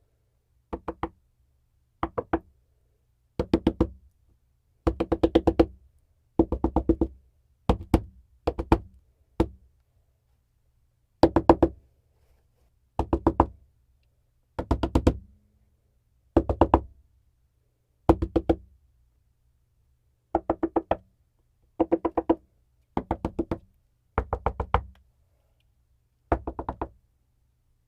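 Knocking on a desk in short groups of several quick raps, the groups separated by brief silences.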